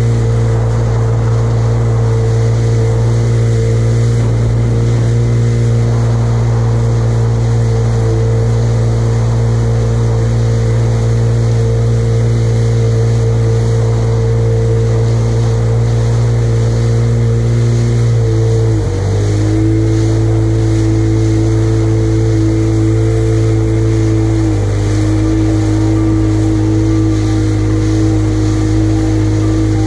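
Jet ski engine running at a steady cruising speed over the rush of water and spray along the hull. About two-thirds of the way through the engine note dips briefly as the throttle is eased, settles a little lower, then steps down slightly again a few seconds later.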